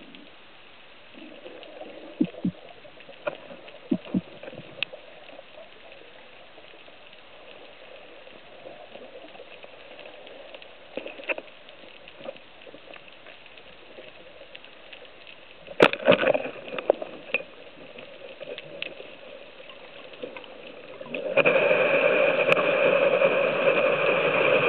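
Underwater sound from a spearfisher's dive: a low water hiss with scattered faint clicks. A sharp crack with a short cluster of knocks comes about two-thirds of the way through, fitting a speargun firing at a white seabream. A much louder steady rush of water takes over for the last few seconds.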